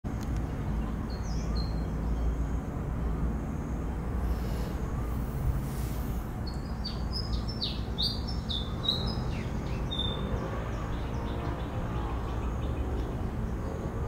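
Birds calling in short, high, falling chirps: a couple early, then a quick run of them in the middle, over a steady low rumble of background noise.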